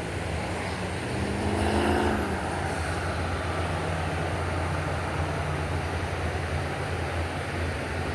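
A motor vehicle passing close by on the road, its engine note rising and loudest about two seconds in, over a steady low engine hum.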